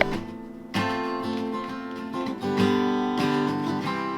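Acoustic guitar strumming chords, a few strums each left to ring out and fade.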